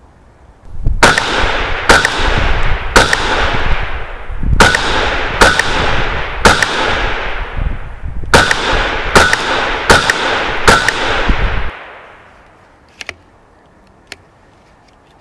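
A CZ 512 semi-automatic rimfire rifle in .22 WMR firing ten sharp, loud shots, about one a second, in three quick strings of three, three and four, each crack with a short ringing tail. A low rumble runs under the shooting and stops just after the last shot, and two faint clicks follow.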